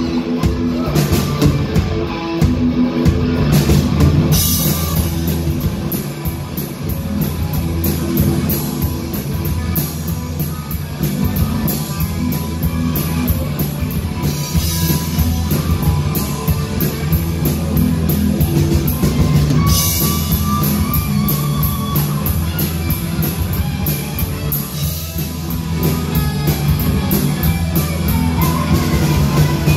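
Live rock band playing loud, with drum kit and electric guitars.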